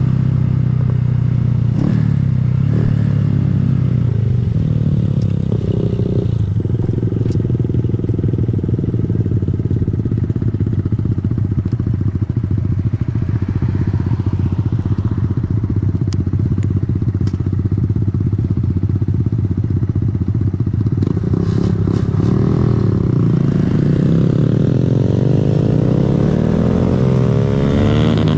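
A 2020 Honda Grom's 125 cc single-cylinder engine running while the bike is ridden. It holds a steady speed for most of the time, and in the last several seconds its pitch rises and falls with throttle changes.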